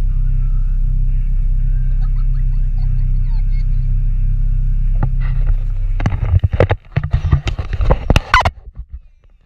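Steady low rumble of a van's cabin, its engine running. About six seconds in, a run of irregular knocks and rattles close to the mic as the dash-mounted camera is moved.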